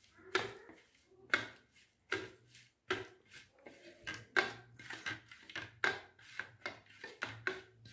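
Fingers mixing ground spice powders and lemon juice into a paste on a stainless steel plate, scraping and rubbing on the steel in short, irregular strokes, about two a second.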